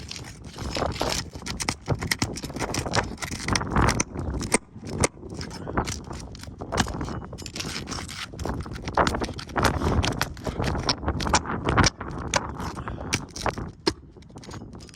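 Irregular scraping, tapping and clicking of hands and a tool working at asphalt roof shingles, lifting a shingle tab to test whether it can be repaired.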